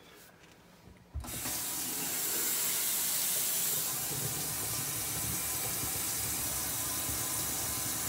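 Kitchen sink faucet turned on about a second in and left running steadily, water pouring into the sink to flow-test a newly fitted drain.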